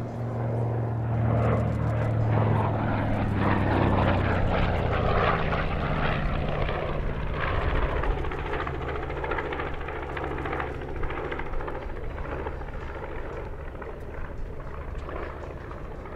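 B-25 Mitchell bomber's twin Wright R-2600 radial piston engines and propellers droning past in a flyby. The drone swells over the first few seconds, its pitch falling as the plane goes by, then slowly fades.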